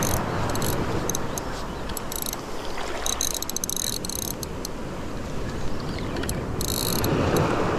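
Shallow surf washing around the wader's legs, swelling near the start and again about seven seconds in. Over it, a Daiwa 22 Exist spinning reel ticks in short high-pitched bursts as line is wound against what feels like a snag.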